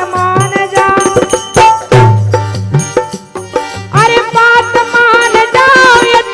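Bundeli folk wedding-song (gari) music: a melody over percussion strikes.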